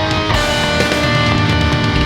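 Rock music with electric guitar and a steady low beat.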